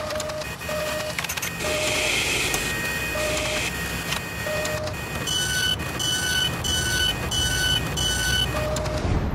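Machinery sound effects for an animated machine: a steady mechanical whir and clatter with short beeps at uneven intervals. From about five seconds in come five quicker, higher beeps in a row, and the machine noise stops abruptly at the end.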